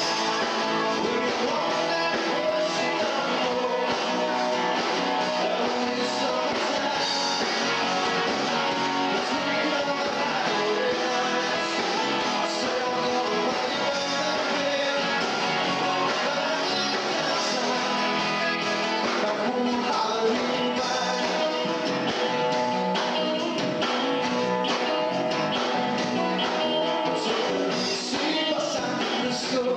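Four-piece rock band playing live, with guitars, in a recording with little bass.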